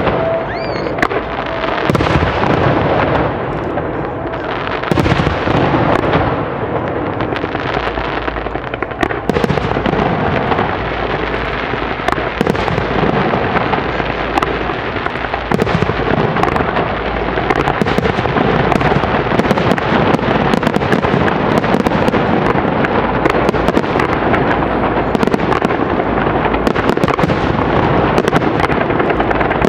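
Rapid-fire barrage of aerial fireworks shells, booms and crackling bursts overlapping in a continuous rumbling run with no pause.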